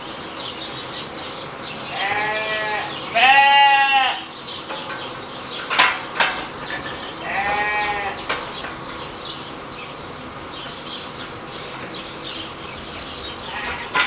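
Sheep bleating three times, each call wavering, the second one loudest. A single sharp knock comes between the second and third bleats.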